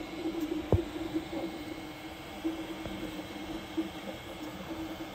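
Longer LK5 Pro FDM 3D printer running a print: its stepper motors give a steady hum that wavers as the printhead moves, with one sharp click a little under a second in.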